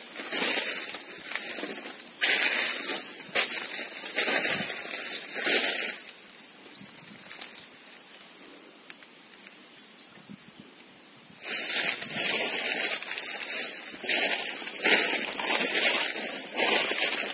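Dry fallen leaves and undergrowth crunching and rustling under footsteps, in quick irregular bursts, with a lull of about five seconds in the middle before the rustling resumes.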